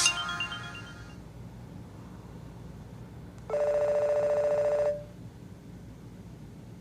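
Nokia E90 phone speaker playing ringtones: the last notes of one melody fade out in the first second, then about three and a half seconds in a single steady, buzzy electronic tone sounds for about a second and a half and cuts off abruptly.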